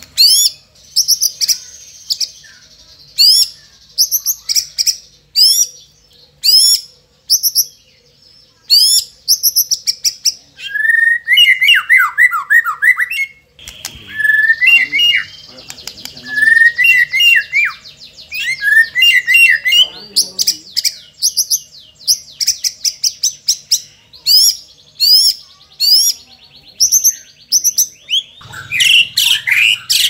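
White-rumped shama (murai batu) singing loudly and without pause: sharp high whistles in quick series, buzzing trills, and runs of lower falling chirps in the middle of the stretch. It is a varied song packed with mimicked calls ('isian').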